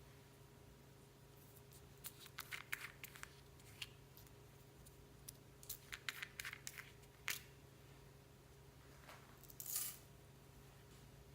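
Faint clicks and crackles of clear slime mixed with beads and floam being squeezed and worked by hand. They come in short clusters with pauses between, and there is a slightly louder crackle near the end.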